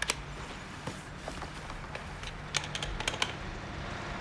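Handling noise from a plastic toy skid steer and its cardboard box: a scattering of sharp light clicks and taps. There are two at the start and a quick cluster about two and a half to three and a quarter seconds in, over a low steady hum.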